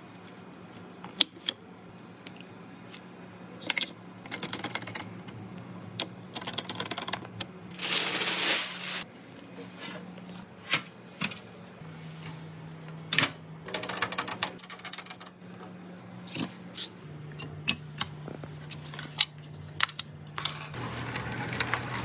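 Computer parts being handled and fitted during a PC build: irregular clicks, taps and snaps of plastic and metal, with a longer rustling scrape about eight seconds in. A low steady hum runs underneath and steps down in pitch a few times.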